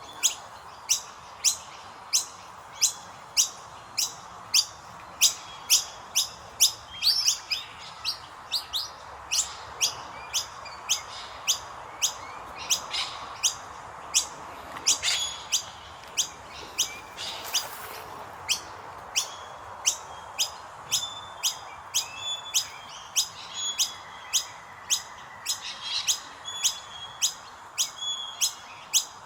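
Indian myna chicks giving short, sharp, high-pitched chirps, about two a second in a steady run: nestlings begging to be fed.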